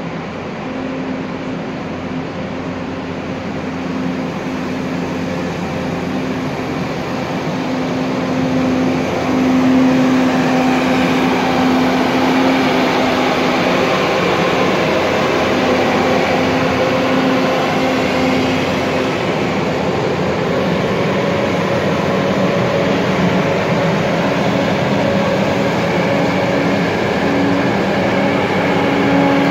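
Farm tractor running as it tows a sprayer blowing disinfectant mist: a steady mechanical drone with a steady hum in it. It grows louder over the first ten seconds or so as the tractor comes closer, then holds.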